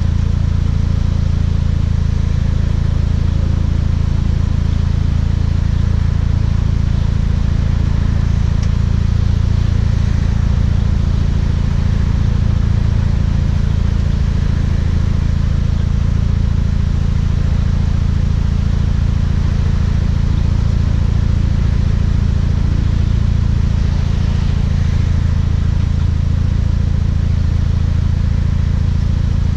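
Exhaust note of a Volkswagen Mk6 GTI's turbocharged 2.0-litre four-cylinder through an aftermarket Beluga exhaust, running steadily with a deep, even low drone and no big revs.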